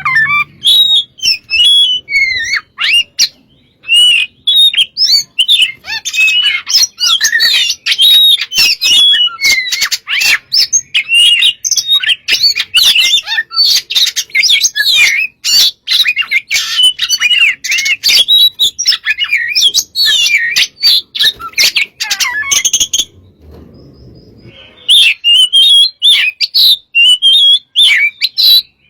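Oriental magpie-robin (kacer) singing continuously at full volume: a fast run of varied whistled phrases mixed with harsh, clicking notes, with a pause of about two seconds near the end.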